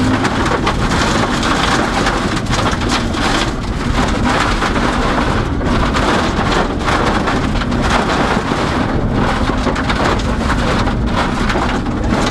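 Gravel and stones thrown up by the tyres pelting the underbody and wheel arches of a Toyota 86 rally car at speed on a gravel stage: a dense, continuous hiss of small hits that largely drowns out the engine.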